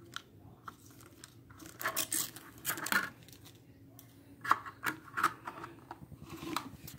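Clear plastic packaging film crackling and rustling in two bunches of short bursts as it is handled and pulled, about two seconds in and again about four and a half seconds in, with a few small clicks between.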